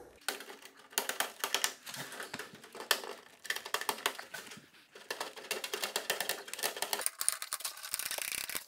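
Tin snips cutting through expanded metal lath: a rapid, irregular run of sharp metallic snips and clicks, turning into the scratchy rattle of the loose mesh being pulled free near the end.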